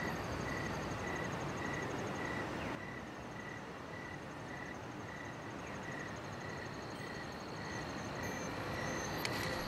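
Faint night-forest ambience from a promotional video played over hall speakers: a steady hiss with a soft insect-like chirp repeating about two to three times a second.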